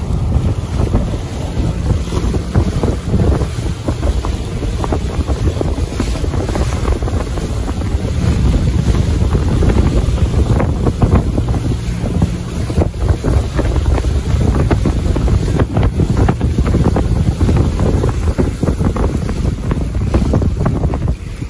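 Wind buffeting the microphone over the wash of choppy waves against the boat.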